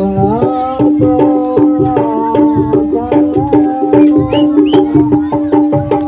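Loud music with a steady drumbeat: a held note sounds under a melody that moves in short steps.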